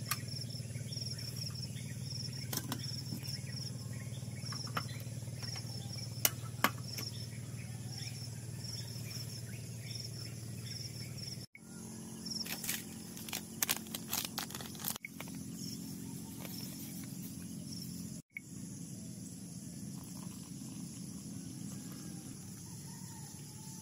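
Crickets chirping in a steady pulsing trill over a low hum, with a few sharp clicks at the start and about six seconds in as a portable cartridge gas stove is lit. About halfway through, a run of clinks and knocks, then quieter insect ambience.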